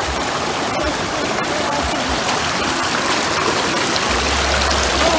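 Shallow, muddy river water running over stones: a steady rush of flowing water.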